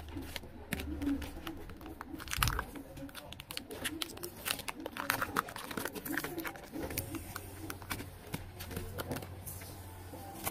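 Clear plastic card sleeves and hard plastic card holders crinkling, rustling and clicking as a stack of photocards is handled and flipped through, with many short irregular clicks.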